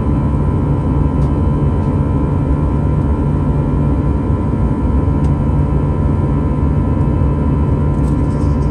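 Steady in-cabin noise of an Airbus A321 climbing out after takeoff: its CFM56 turbofan engines running at climb power, a dense low rumble with a steady hum on top. A few faint clicks.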